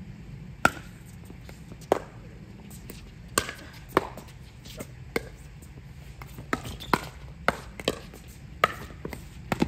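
Pickleball rally: paddles striking the hard plastic ball, about a dozen sharp pops at an uneven pace.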